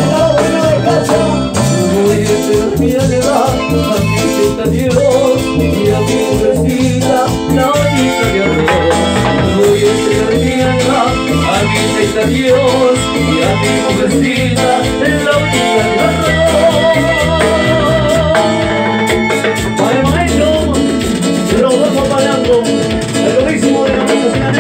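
Live Latin tropical dance band playing, with singing and horn lines over a steady beat from timbales and bass.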